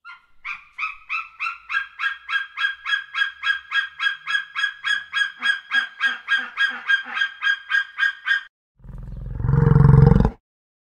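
Javan hawk-eagle calling a long, even series of short high notes, about four a second, for some eight seconds. Near the end a large bovine gives one loud, low bellow.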